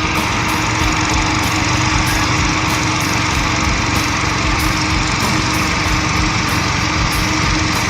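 An engine running steadily and loudly, with an even hum under a dense mechanical noise.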